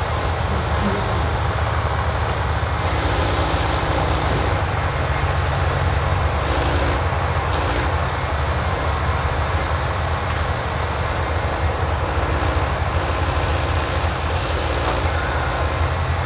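Diesel engine of a forestry machine with a hydraulic crane running steadily while the crane works a load of branches. A slightly higher hum comes and goes several times over the steady low drone.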